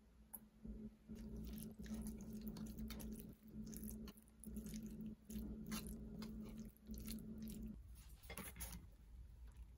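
A spoon stirring and mashing chopped egg salad with mayonnaise and mustard in a wooden bowl: soft wet squishing with irregular scrapes and taps of the spoon against the bowl. Near the end a few scrapes as the salad is spooned out.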